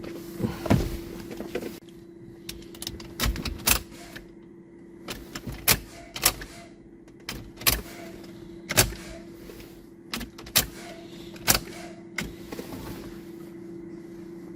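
A series of sharp, irregular clicks and knocks over a steady low hum.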